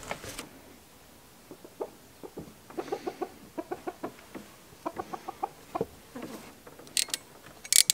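Chickens clucking: a run of short, pitched clucks. Near the end, two sharp clicks, the loudest sounds here.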